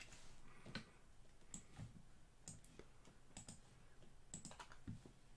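Faint, scattered clicks of a computer keyboard and mouse, at irregular intervals of about one or two a second.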